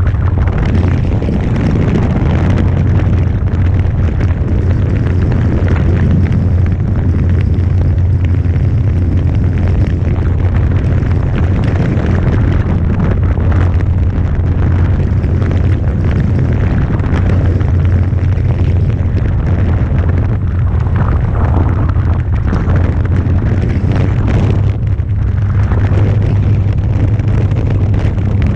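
Electric Carbon-Z Cessna 150 RC model plane in flight, its brushless motor and propeller giving a steady low drone under a loud, rough rumble.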